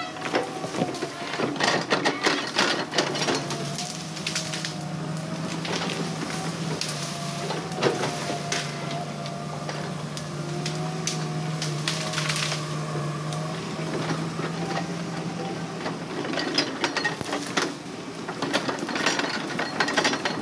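Diesel engine of heavy logging equipment (excavator or bulldozer) running under load, its hum wavering in pitch, with many irregular metallic clanks and knocks from tracks and timber. The knocks are thickest at the start and again near the end.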